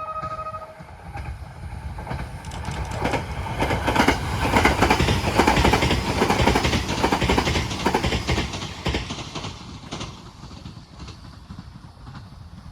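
E655 series electric train passing, its wheels clicking over the rail joints; the run grows louder to a peak about four to eight seconds in, then fades. The last of its two-tone horn cuts off in the first half-second.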